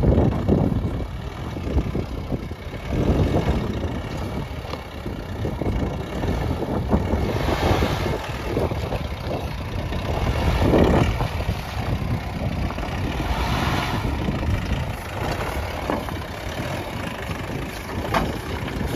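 Mahindra Bolero 4x4's diesel engine running at low speed as the SUV crawls over loose river stones and boulders, with occasional knocks as the tyres climb over rocks.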